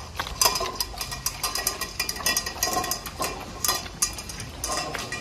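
Dogs eating a soft mush of ice cream and rice from stainless steel bowls: snouts and tongues knocking and scraping against the metal in a run of irregular light clinks.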